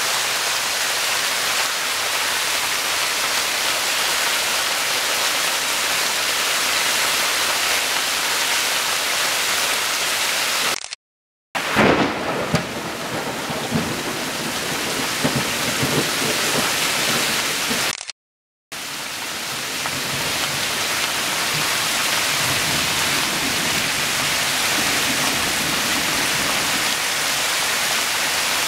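Heavy rain pouring steadily. The sound cuts to silence twice for under a second. The stretch between the cuts is louder, with thunder rumbling.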